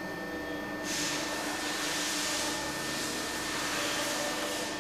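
Steady fan-like whirring with a constant hum underneath; a brighter hiss joins about a second in and holds.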